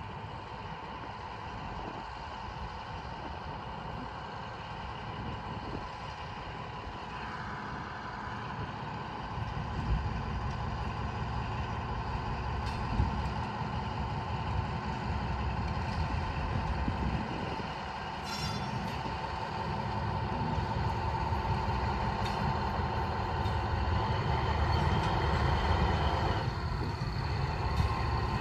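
Shunting locomotive running, with a steady whine over its low rumble. The rumble swells about a third of the way in and grows louder toward the end, as the locomotive works nearer, with a few sharp clanks along the way.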